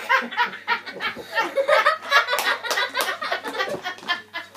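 People laughing in short, repeated chuckles, with a few brief clicks among the laughs.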